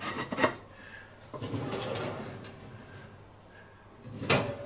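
Clay Römertopf roaster being set onto an oven's wire rack and slid in: a few clinks, then a scraping slide. A sharp clunk comes near the end.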